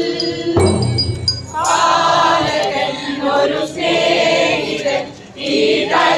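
A group of men and women singing a Christmas carol together in chorus, with a short break between phrases about five seconds in.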